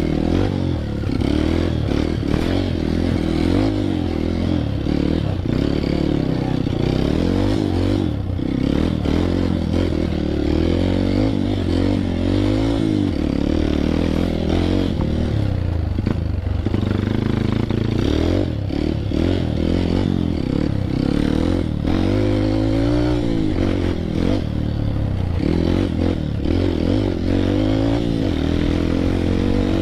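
Dirt bike engine running on a rough trail, its pitch rising and falling with the throttle, with frequent knocks and rattles from the bike over the ground.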